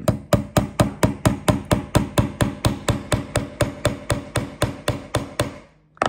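Claw hammer lightly tapping a steel nail axle into a pine car body: a quick, even run of about two dozen taps, about four a second, that stops shortly before the end.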